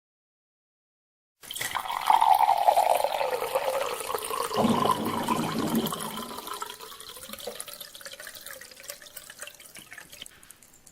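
Water pouring into a drinking glass, filling it. It starts after about a second and a half of silence, is loudest over the next few seconds, then grows steadily quieter.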